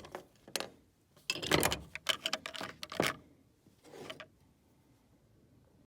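A string of clatters and knocks from hard gear being handled and set down. The loudest cluster comes just under two seconds in, a sharp knock about three seconds in and a softer rattle about four seconds in.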